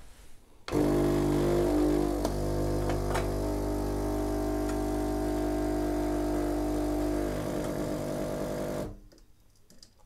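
Philips EP2220 automatic coffee machine's pump humming steadily as it brews espresso into a glass of steamed milk for a latte. It starts about a second in and cuts off shortly before the end.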